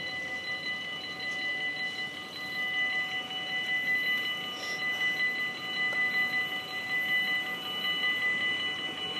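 Railroad crossing warning bell ringing steadily with the barriers down, the signal that a train is approaching.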